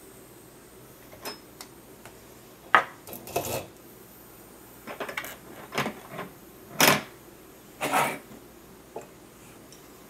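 Small tools and parts being handled and set down on a workbench: a scattered series of short clicks and clatters, the loudest about three, seven and eight seconds in.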